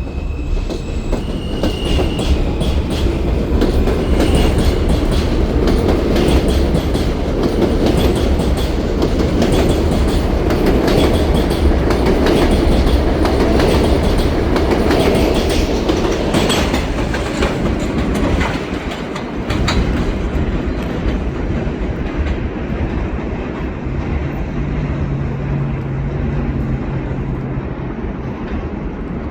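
New York City subway R160A-2 train pulling out and running along the rails, its wheels clacking over rail joints. It builds to its loudest through the middle and then eases off.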